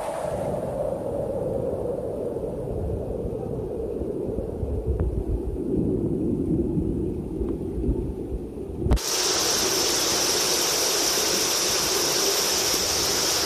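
Heavy rain and rushing floodwater: a deep, dull rush for about nine seconds, then a sudden cut to a brighter, hissing downpour.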